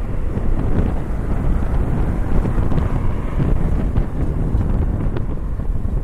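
Strong wind buffeting the microphone: a loud, low rumbling rush that swells and dips.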